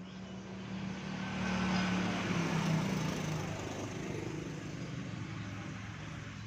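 A motor vehicle's engine passing by, growing louder to a peak about two to three seconds in and then slowly fading.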